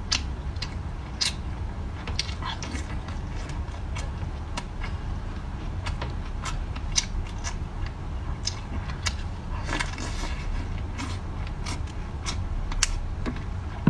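Close-miked eating sounds of someone chewing shrimp: irregular wet smacks and small crackles, with a steady low hum underneath.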